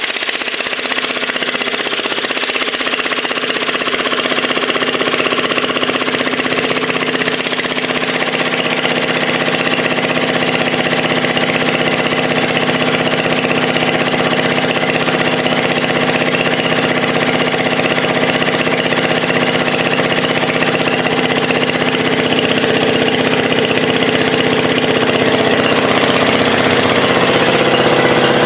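Onan generator's small gasoline engine running steadily, fed by a newly fitted vacuum-operated fuel pump in place of its failed mechanical pump, showing that the swap works. It gets a little louder near the end.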